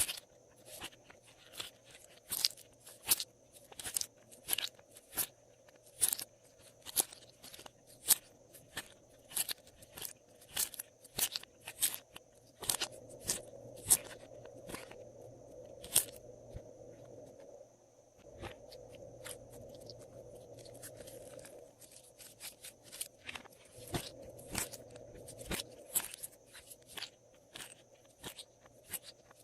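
Glossy slime being pressed and folded by hand, giving irregular sharp clicks and crackling pops, a few each second.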